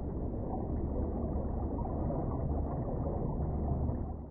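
A low, steady rumble with a deep hum underneath, like underwater ambience, fading out right at the end.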